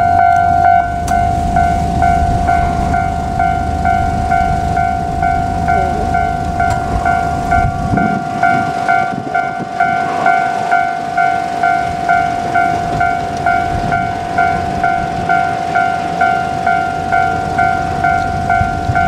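Japanese railway level-crossing warning bell ringing in an even repeating rhythm, a steady tone with a pulsing higher tone over it. A low rumble lies under it and falls away about eight seconds in.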